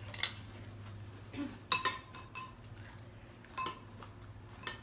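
Spoons and chopsticks clinking against ceramic soup bowls while eating noodle soup: a handful of sharp clinks with a short ring, the loudest a quick double clink about two seconds in, over a low steady hum.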